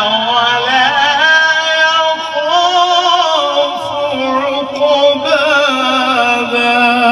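A man reciting the Quran in the melodic tajwid style, drawing out long ornamented notes whose pitch wavers and glides.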